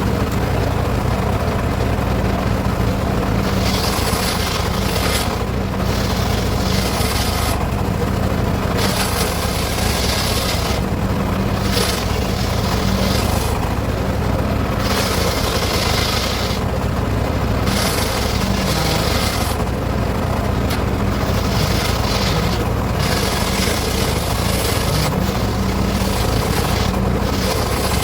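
Circular saw running steadily and cutting teak wood, with repeated rasping cuts of a second or two each over its constant drone.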